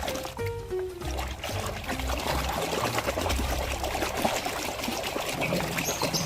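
Water splashing and trickling as a toy vehicle is washed in a basin of water.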